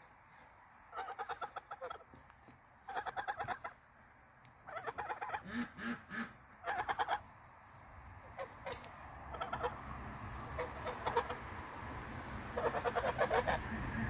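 Domestic geese calling in short bouts of rapid, chattering honks, a new bout every second or two.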